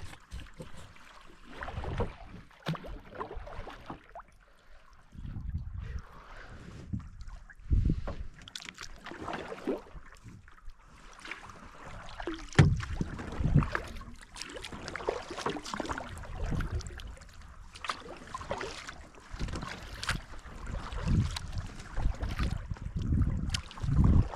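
Kayak paddle strokes dipping and splashing in the water, coming irregularly every second or two, with low rumbles of wind on the microphone.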